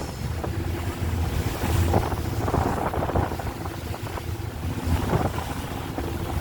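Passenger boat under way on choppy sea: a low engine rumble and the rush of water and waves, with wind buffeting the microphone in gusts.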